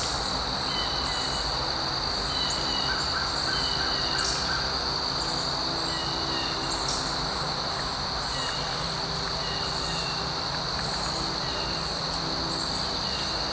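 Outdoor dawn chorus: insects trill in a steady high drone while a bird repeats a short call about once a second, with a few sharp high chips now and then.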